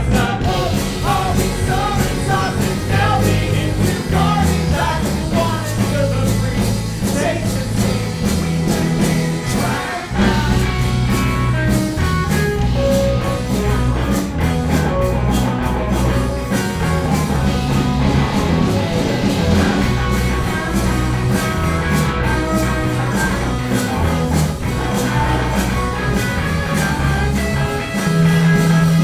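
Live band playing a rocksteady song: a steady drum beat and bass line under a wavering melodic lead.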